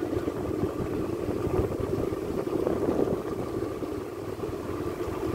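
Steady low rumble of outdoor background noise, with a faint steady high tone.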